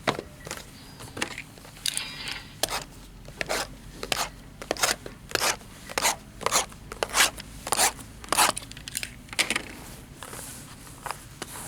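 Trading card packs being torn open and the cards handled: a quick run of short crinkles, rips and scrapes, about two a second.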